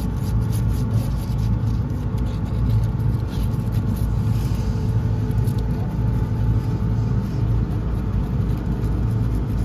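A steady, loud low rumble with a constant hum, like a nearby motor or machinery.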